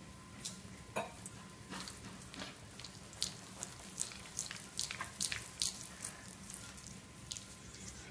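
Irregular sharp scratches and scuffs: a Bengal cat's claws scrabbling on a hardwood floor as it is rolled and wrestled, coming thick and fast in the middle and thinning out near the end.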